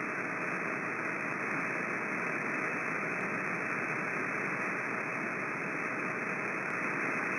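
Steady hiss of static from a CB radio receiver with the squelch open between transmissions, confined to the radio's narrow audio band.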